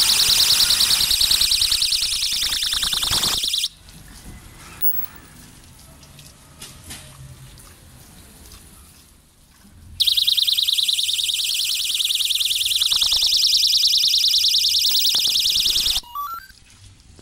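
Solar-powered ultrasonic animal repeller sounding its audible alarm: a loud, rapidly pulsing high-pitched electronic tone. It cuts off about four seconds in, starts again about ten seconds in, and stops about six seconds later.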